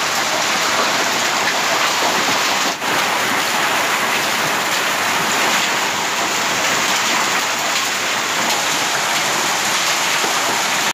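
Heavy rain mixed with hailstones pelting a paved yard: a steady, dense patter with a brief dip about three seconds in.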